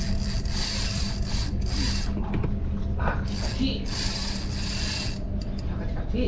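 Spinning reel's drag ratcheting in spurts as a hooked fish pulls line off under the pier, just before the line breaks on a snag.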